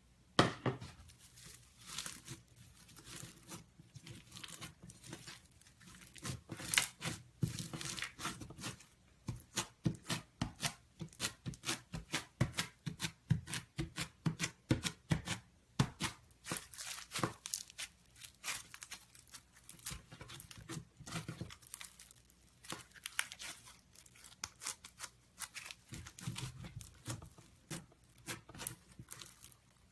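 Foam slime being squeezed and poked by hand, giving a dense, irregular crackling and popping that starts about half a second in.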